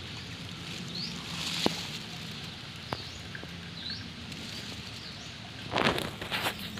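Outdoor ambience with a steady hiss and a few short, rising bird chirps. There are a couple of sharp clicks, and a burst of rustling about six seconds in.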